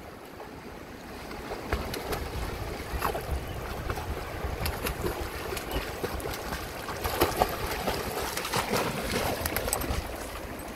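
Dogs swimming and splashing in a shallow, flowing river over running water, with a low wind rumble on the microphone. The splashing grows louder near the end as a dog wades through the shallows close by.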